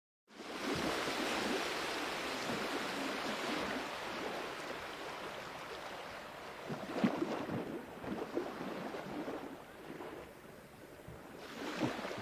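Sea waves washing in: after a moment of dead silence a wave surges in and then slowly fades, with splashes in the middle. The next wave swells in near the end.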